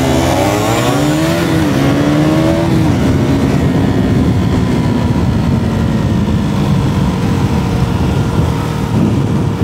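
KTM Duke 200 single-cylinder four-stroke engine running with the bike under way, heard from the rider's seat with wind noise on the microphone. Its pitch rises and falls for the first few seconds, then holds steady.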